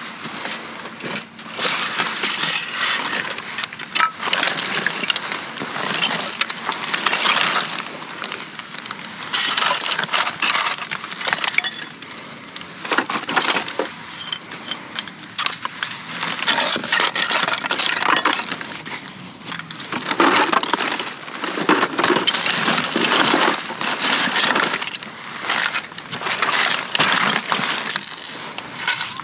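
Hands rummaging through a dumpster full of toys: plastic items and other trash clattering and clinking against each other, on and off in dense bursts.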